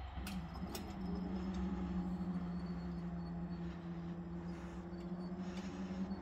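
Level crossing barriers raising: the EBI Gate 2000 barrier drives start with a couple of sharp clicks, then hum steadily as the booms lift.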